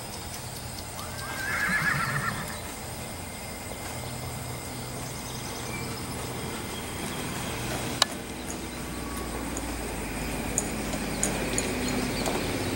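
A horse whinnies once, for about a second, shortly after the start. Hoofbeats on soft arena dirt follow, with one sharp click about two-thirds of the way through.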